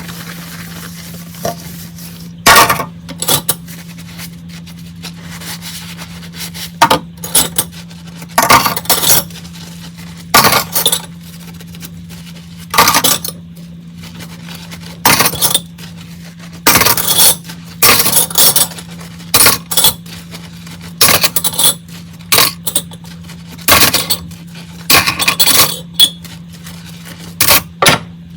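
Dishes and cutlery clinking and clattering as they are handled, in short, irregular bursts every second or two over a steady low hum.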